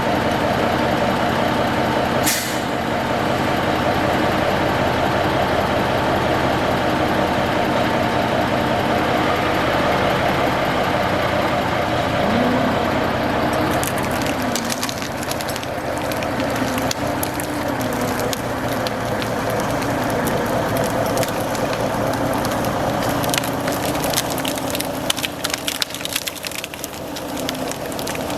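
A 1974 Kenworth self-loading log truck's diesel engine running steadily, its pitch wavering slightly about halfway through. From about the middle on, many sharp cracks and snaps of wood break in over it.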